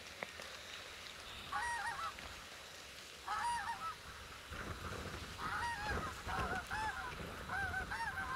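Greylag geese honking in short runs of calls, a few seconds apart at first, then coming closer together in the second half.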